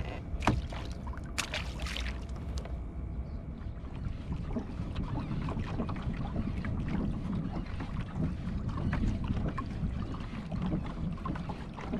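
Water lapping against a kayak's hull, with wind on the microphone. A few short splashes in the first two seconds as a fish is let go over the side.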